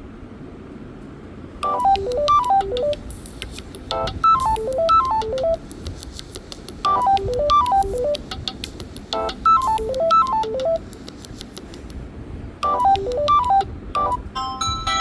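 Samsung Galaxy A03 ringtone playing: a short melody of two quick falling runs of notes, repeated five times with short gaps between. Another ringtone with a different pattern of notes starts near the end.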